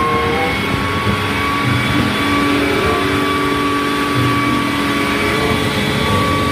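Large mining haul dump truck's diesel engine running steadily as the truck drives, with a steady high whine over the engine noise.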